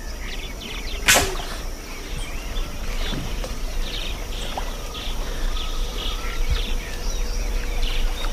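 Birds chirping and calling over a steady high hum of outdoor ambience, with one sudden sharp sound about a second in.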